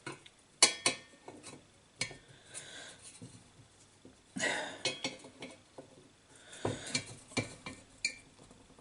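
Hand tools clinking and scraping against the brass fittings of an antique paraffin blowlamp as a small brass nut and bolt are undone. Irregular sharp metal clicks, with short rasping scrapes about halfway through and near the end.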